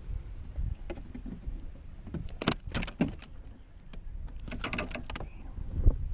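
A hooked largemouth bass shaking on the line beside a plastic kayak deck: two bursts of rattling clicks, then a single sharp knock near the end. Low wind rumble on the microphone throughout.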